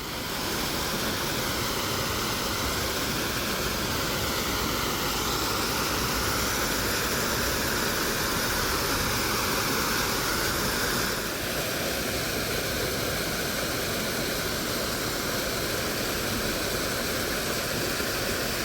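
Water rushing and cascading at a canal lock, a loud steady wash that dips slightly about eleven seconds in.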